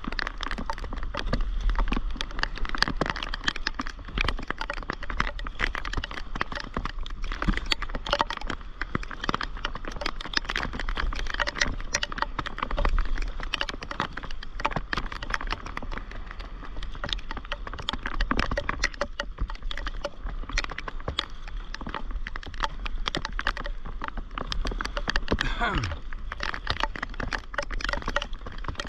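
Raindrops striking the camera housing and paddleboard in dense, irregular clicks, over water sloshing from paddle strokes on the sea. A single falling tone sounds near the end.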